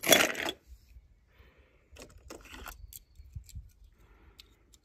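A brief loud noisy burst in the first half-second, then scattered faint clicks and light rattles of small hard objects being handled.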